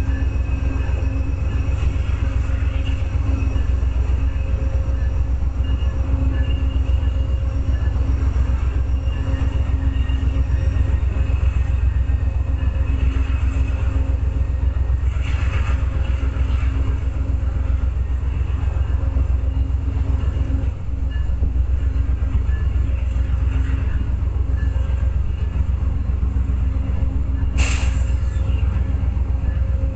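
Amtrak passenger train's diesel locomotive running with a steady low rumble and a constant hum. A short sharp sound comes near the end.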